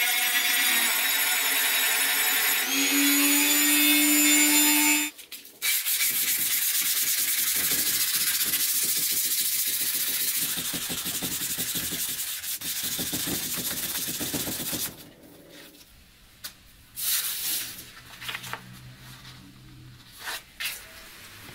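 A small rotary tool with a sanding drum whines against the steel knife blade, stopping about five seconds in. Then the blade is sanded by hand, a steady scratchy rubbing for about nine seconds, followed by a quieter stretch with a few brief rustles and scrapes of sandpaper.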